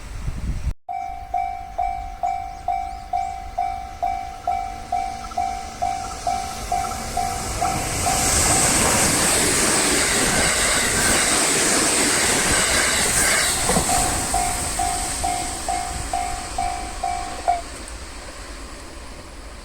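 Japanese level-crossing warning bell ringing in quick repeated dings, about two a second, starting abruptly about a second in. About eight seconds in a train runs over the crossing, and its noise covers the bell for about five seconds. The bell is heard again afterwards and stops a couple of seconds before the end.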